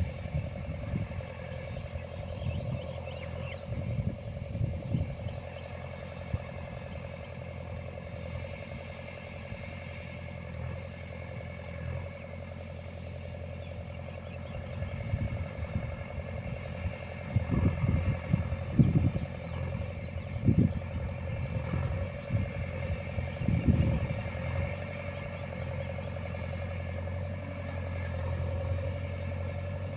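A steady low machine hum, with insects chirping in an even, repeating rhythm over it and irregular low rumbles now and then.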